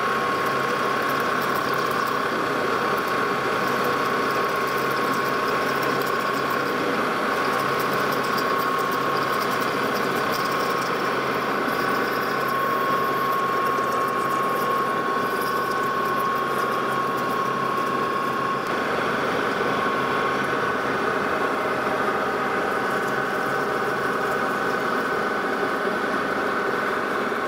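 Metal lathe running at low speed while a parting tool cuts a groove into a turned metal workpiece, a steady mechanical sound. A steady high whining tone runs along with it and fades out about two-thirds of the way through.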